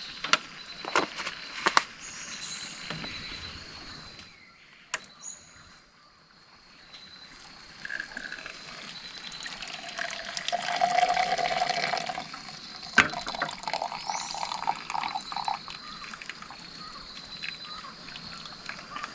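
Water sloshing and trickling, loudest for a few seconds about ten seconds in, with several sharp knocks, the biggest about two seconds in and thirteen seconds in.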